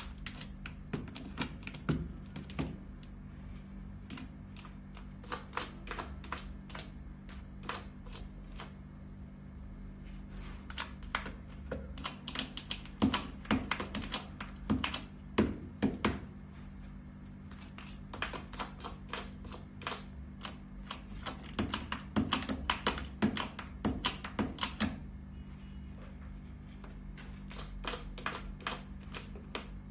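A cat scratching and raking granular litter in a plastic litter box to bury its droppings: rapid gritty clicks and scrapes that come in bursts with short pauses between them.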